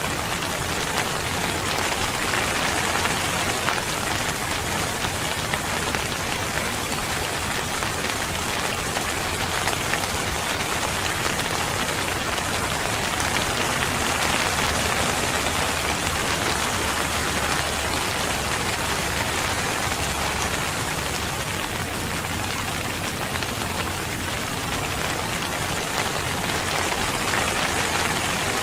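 Steady rain falling, an even dense patter of drops with gentle swells in loudness and no distinct events.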